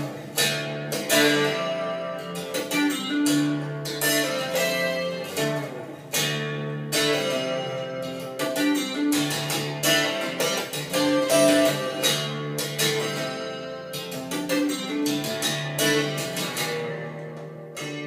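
Recorded music played back through a pair of Ruark Broadsword bookshelf speakers: a plucked-string piece, guitar-like, with individual notes ringing and decaying. The music grows quieter toward the end.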